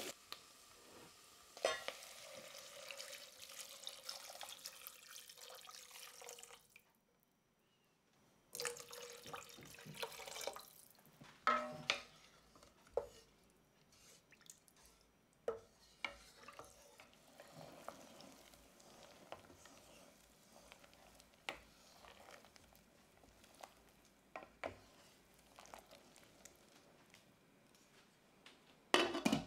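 Water being poured into a stainless steel saucepan of chopped vegetables, a steady rush in two spells with a short silent break. Then a wooden spoon stirring the stock, with scattered knocks against the pan.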